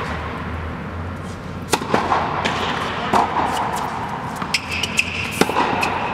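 Tennis balls being struck by rackets and bouncing on a hard court: several sharp, separate pops spaced a second or more apart.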